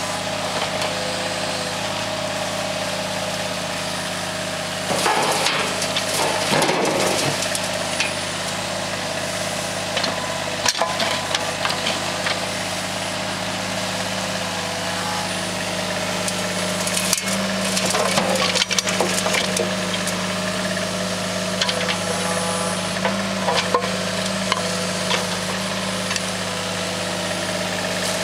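Steady hum of engines running, from a mini excavator and a small-engined powered wheelbarrow dumper, with scattered clatters of dirt and stones dropping from the excavator bucket into the dumper's tub, most of them about five to seven seconds in and again around seventeen to nineteen seconds in.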